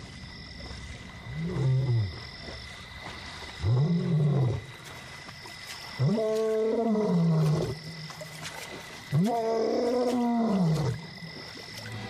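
Young male lion roaring four times, each call rising and falling in pitch, the calls growing longer and louder: a long-distance contact call to a lost companion. A steady high night chorus carries on underneath.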